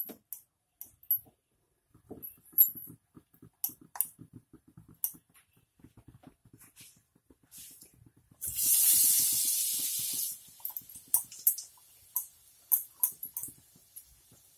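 Soft wet clicks of fingers turning potato balls in besan batter, then about eight seconds in a sudden loud sizzle as a batter-coated ball goes into hot oil for deep-frying. The sizzle fades over about two seconds into scattered popping and crackling of the frying oil.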